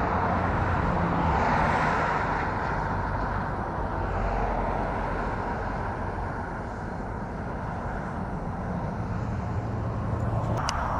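Highway traffic going by: a steady rush of tyres and engine drone that swells as vehicles pass about a second or two in, eases off, and builds again near the end.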